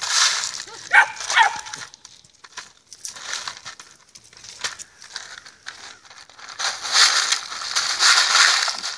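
Ice cubes rattling and clattering in a plastic bowl and against each other as a labradoodle paws and noses through them, loudest near the start and again over the last few seconds. A dog gives a few short high yips about a second in.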